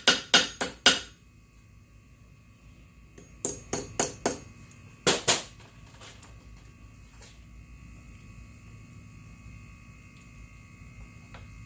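Hammer blows on metal in a quick, even rhythm, about four a second, stopping about a second in. After a pause come a short run of lighter blows and two sharper ones, then only a low hum.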